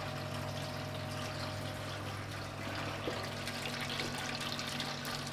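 Brewferm pump running on the Bulldog Brewer, circulating hot water: a steady low electric motor hum under a continuous pour of water.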